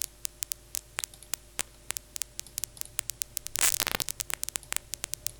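Synthesized paper-crumple crackle from the Vital soft synth: short, sharp clicks fired at irregular random intervals, several a second, with a denser, louder cluster of crackling a little past the middle.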